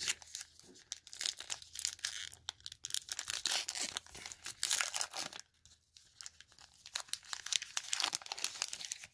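Wrapper of a 2019 Topps Heritage baseball card pack being torn open by hand: quick crinkling and tearing crackles, pausing briefly about halfway through, then crackling again as the wrapper is peeled away.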